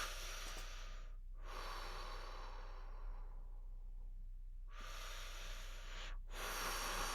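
A person breathing slowly and deeply, soft breaths in and out with short pauses between them and a longer pause near the middle.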